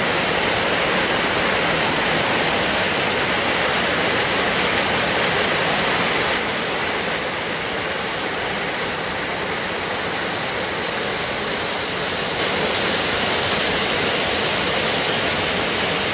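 Waterfall: a loud, steady rush of falling water, its level shifting slightly about six and twelve seconds in.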